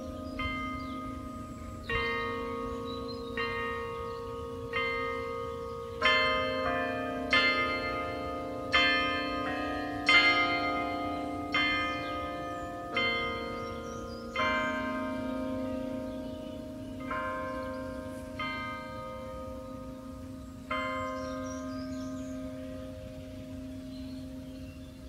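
Carillon bells playing a slow melody, each struck note ringing on with a long fading tail. The notes spread out toward the end, and the last one, struck about four seconds before the end, rings on and fades.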